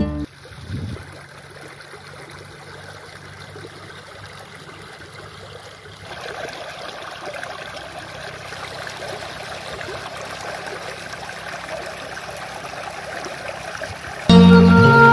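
Shallow stream of muddy water rushing and splashing over stones, growing fuller about six seconds in. Instrumental music cuts in near the end.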